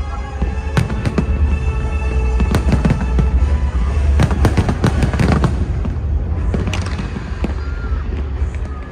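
A fireworks display going off in rapid volleys of sharp cracks and bangs, thickest in the middle, over a deep rumble, with music playing throughout.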